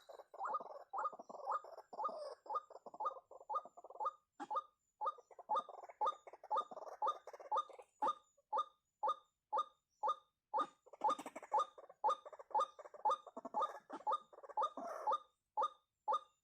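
White-breasted waterhen (ruak-ruak) calling: a run of harsh, repeated 'kwak' notes. They are rapid and overlapping at first, then settle to an even beat of about two notes a second.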